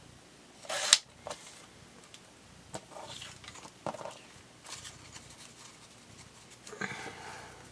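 Scrapbooking paper and tools being handled on a craft table: a sharp knock about a second in, then a few brief rustles and scrapes of paper.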